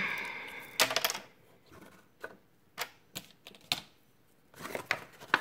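A series of light, sharp clicks and taps from a folded cardstock box being handled on a table: a quick cluster about a second in, then single taps spread apart.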